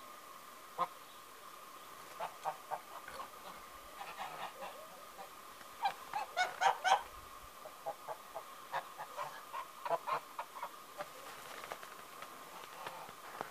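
A flock of domestic geese honking in short, scattered calls, with a louder cluster of several honks about six to seven seconds in.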